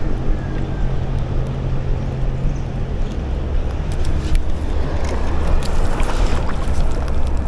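Wind buffeting an action camera's microphone, with a low steady hum under it that drops in pitch about three seconds in.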